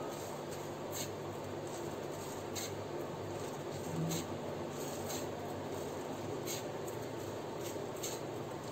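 Fine sev being sprinkled by hand onto dahi puri: soft, dry rustles and a few faint ticks, about one every second and a half, over a steady background hum.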